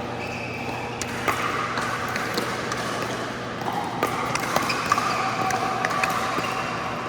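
Pickleball paddles striking plastic balls on the courts of an indoor hall, a scattered run of irregular sharp pops.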